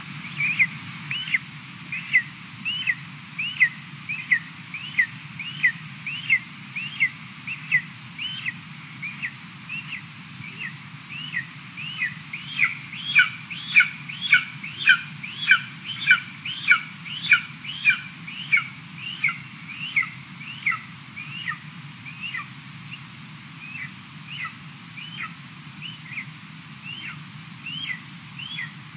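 Golden eagle eaglet giving thin, falling chirping calls, about two a second, typical of a nestling begging for food from the adult. The calls grow louder and fuller for several seconds around the middle.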